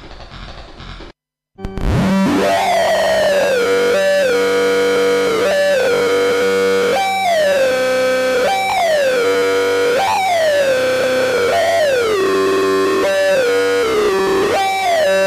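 Synthesizer sound effect: a sustained electronic tone whose pitch jumps up and slides down again about every second and a half, over a steady low drone. It starts suddenly after a short silence and follows the tail of a quieter, different sound.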